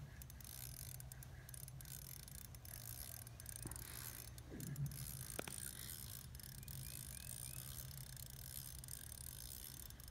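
Ice fishing reel ticking faintly as a lake trout is played on the line: the reel being worked against a fish that keeps pulling.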